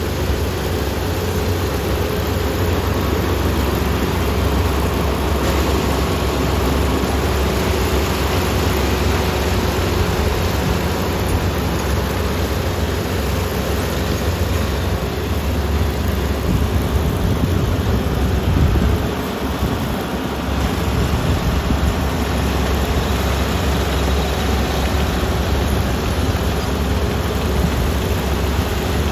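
Kubota combine harvester's diesel engine and threshing machinery running steadily while harvesting rice, with a deep rumble and a faint steady whine; the level dips briefly about two-thirds of the way through.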